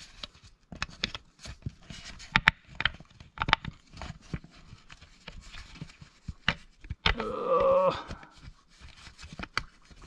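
Scattered small clicks, taps and scrapes of a hand working a bolt back out of the factory turbo-inlet mouthpiece in a diesel engine bay, with a brief pitched sound lasting about a second around seven seconds in.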